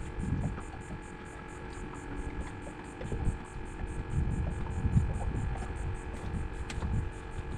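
Steady electrical hum with a faint, quick, regular high-pitched ticking over it, and irregular low rumbles.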